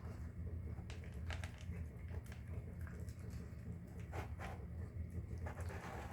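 Pomeranian eating from its bowl: scattered small wet clicks and crunches of chewing and licking, a few per second at most, over a steady low hum.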